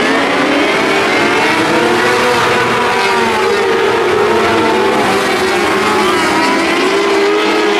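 A pack of micro sprint race cars with 600cc motorcycle engines running hard through a dirt-track turn, several high engine notes rising and falling over one another as the drivers get on and off the throttle.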